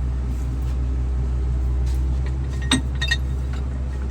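Steady low drone of an engine running, with two sharp metallic clinks, one a little under three seconds in and another just after, from metal plumbing fittings or tools being handled.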